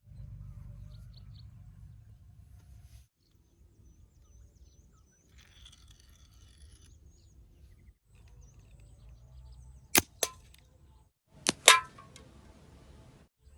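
Homemade slingshot rifle being shot: two pairs of sharp, loud snapping cracks near the end, the last with a brief metallic ring, over a low rumbling background noise.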